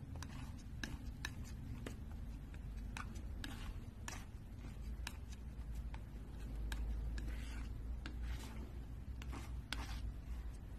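Metal palette knife scraping and spreading thick paint across a flat surface: many short scrapes and soft clicks, with a steady low rumble underneath.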